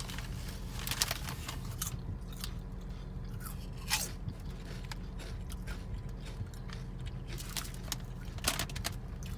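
Crunchy Rap Snacks potato chips being chewed close to the microphone: irregular crisp crunches, densest in the first two seconds, with single sharp crunches about four seconds in and near the end.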